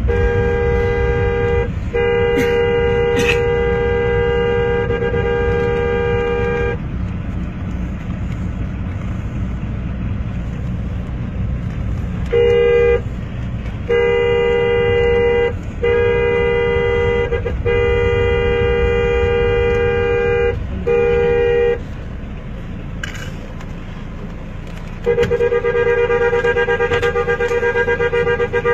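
Car horn sounded in long held blasts of one to five seconds with short breaks, twice falling silent for several seconds, over the steady rumble of the engine and road heard from inside the moving car.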